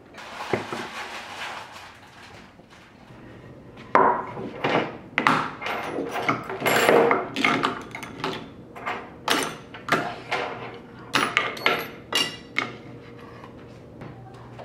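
A string of sharp knocks and clatters from hard objects being handled and set down, starting about four seconds in and thinning out near the end.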